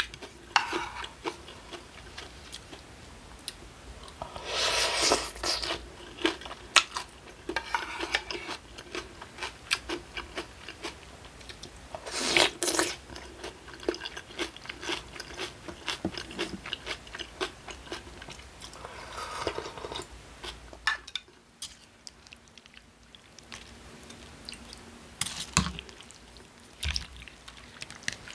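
Close-miked eating of cold acorn-jelly rice in broth (dotori mukbap) with kimchi and vegetables: wet chewing and crunching, with small clicks of a spoon or chopsticks against the bowl. Now and then a louder burst lasting about a second stands out.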